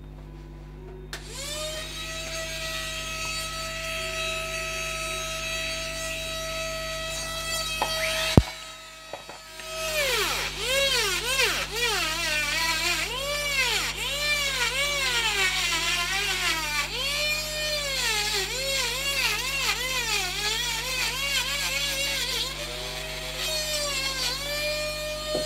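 Handheld high-speed rotary carving tool working wood. A steady high whine starts about a second in and cuts off with a click about eight seconds in. It then starts again and repeatedly rises and falls in pitch as the bit is pressed into the wood and eased off.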